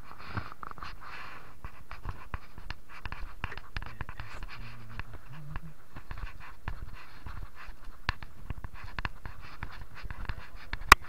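Wind rushing and buffeting on the microphone of a moving motorcycle, a steady noise full of small clicks and crackles, with a short low tone about halfway through.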